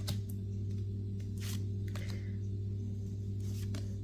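Trading cards being handled and flipped, a few short crisp flicks and rustles, over a steady electrical hum.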